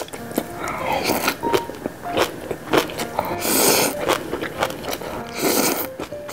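Instant ramyun noodles slurped off chopsticks: two long airy sucking slurps, about three and a half seconds in and again near the end, with wet smacks and clicks of chewing between them.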